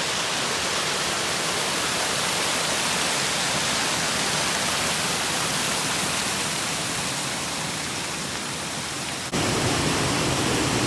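Steady rush of flowing creek water. About nine seconds in it changes abruptly to a fuller rush with more low rumble.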